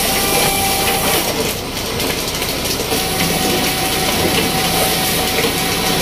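Loud steady rumble and clatter of fishing-boat deck machinery hauling the catch, with a faint steady whine that comes and goes.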